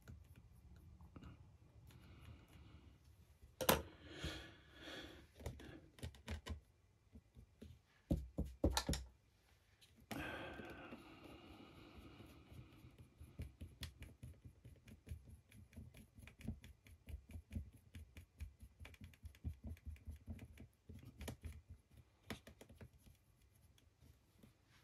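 Faint, scattered small clicks and taps of hands and a fine paintbrush working on a 3D-printed figure on a cutting mat, with a few louder knocks, the loudest about three and a half seconds in and again about eight seconds in.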